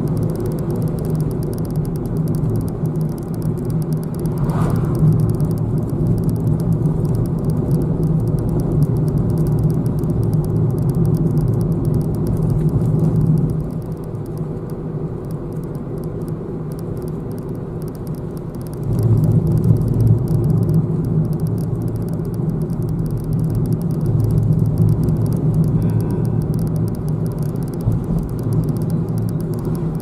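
A car's engine and tyre noise heard from inside the cabin while driving a winding road: a steady low hum that drops quieter for several seconds around the middle, then picks up again.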